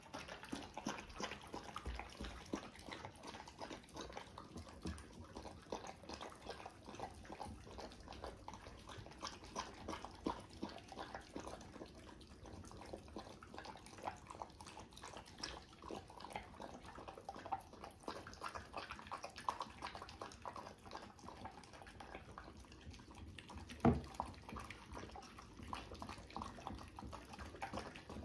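Two dogs lapping and slurping soup from bowls, a quick run of small wet licks and splashes. There is one louder knock about 24 seconds in.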